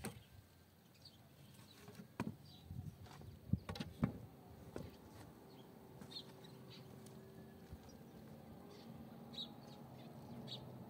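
Dry wooden branches knocking together as they are laid as firewood on a hearth, a few sharp knocks in the first four seconds. Faint short bird chirps come at intervals.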